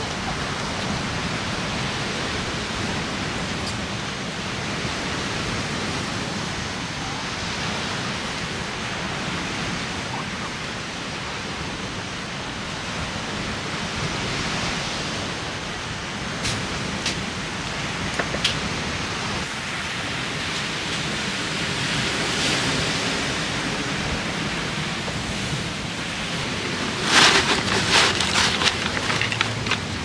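Steady noise of strong wind and surf on a beach, with a run of sharp clicks and knocks near the end.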